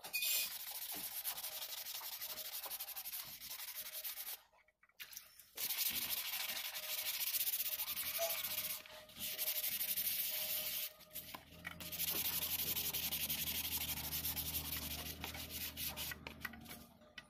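Hand wet-sanding a motorcycle helmet shell with sandpaper: fast scratchy back-and-forth strokes in three long spells, with short pauses about four and eleven seconds in.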